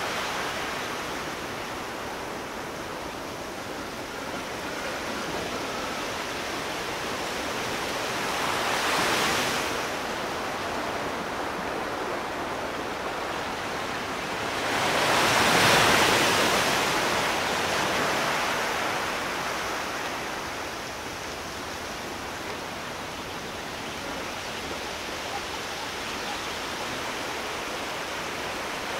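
Sea surf: a steady rush of waves breaking and washing in, swelling louder briefly about nine seconds in and more strongly around sixteen seconds in as bigger waves break.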